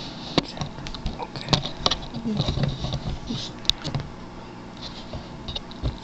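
Handling noise: scattered light clicks, taps and small rattles of things being moved and adjusted by hand.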